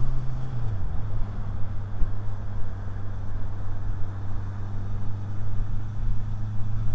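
Motorcycle engine running at a steady pace, its note dropping a little under a second in and then holding even, over low wind and road rumble, heard through a lavalier mic in the rider's helmet.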